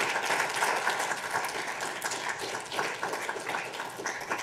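An audience applauding: many hands clapping in a steady, dense patter that thins out near the end.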